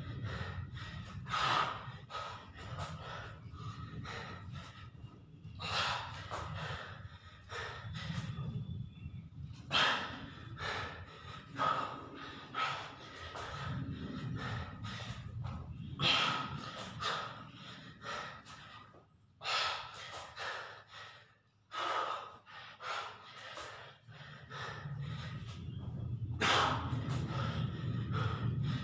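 A man breathing hard and gasping, out of breath from push-ups, with loud breaths every few seconds over a low steady hum.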